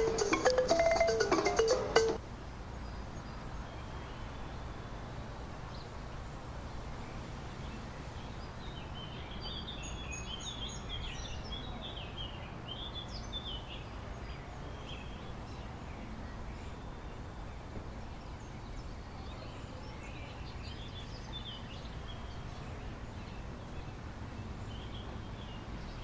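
Music for about two seconds, cut off abruptly. Then steady low outdoor background hum, with birds chirping in a burst a third of the way in and again near the end.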